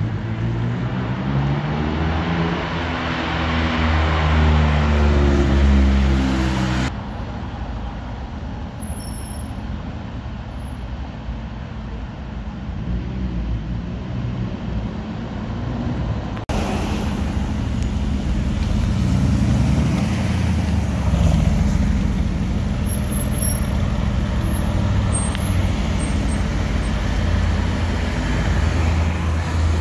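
Sports-car engines pulling away through town traffic. First a McLaren's engine climbs steadily in pitch as it accelerates. After a sudden drop to general traffic, more engine notes rise and fall with gear changes.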